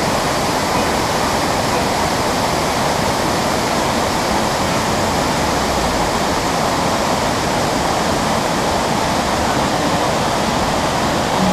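Wide curtain waterfall rushing over rock ledges: a loud, steady, even noise of falling water.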